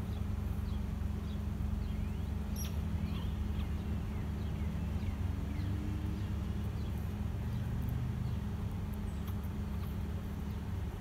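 Steady low hum with faint, short, high chirps scattered through the first seven seconds or so.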